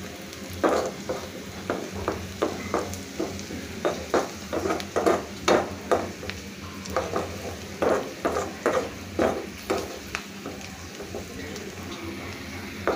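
Chopped garlic and green chillies sizzling in hot oil in a karahi, with a spatula scraping and stirring in short, irregular strokes about once or twice a second. The garlic has turned a light golden colour and is almost fried, ready to be poured into dal as its tempering.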